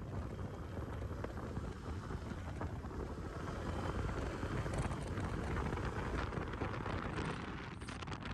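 Wind rushing and buffeting on the microphone of a moving motorcycle, with road noise underneath, a little louder midway.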